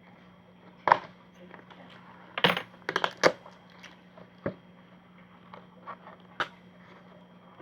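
Scattered sharp clicks and snaps of a doll's cardboard-and-plastic packaging being cut open with scissors and handled, with a quick cluster of them a little past halfway through the first half.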